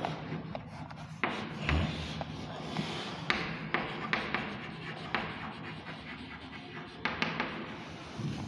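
Chalk on a blackboard: short scratching strokes and sharp taps as lines, boxes and letters are drawn, over a low steady hum.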